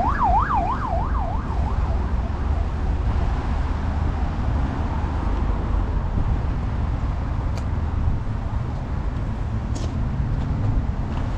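An emergency vehicle's siren in a fast yelp, rising and falling about three times a second, fades out about a second and a half in, leaving a steady rumble of city traffic.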